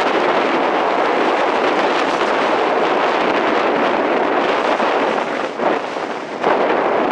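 Strong gusting wind buffeting the microphone, a loud, steady rush that drops briefly for a moment about five and a half seconds in.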